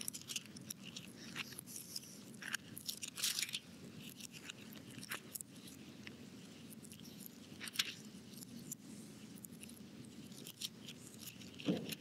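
Faint scattered rustling and soft clicks of Bible pages being turned to find a passage, over low room noise.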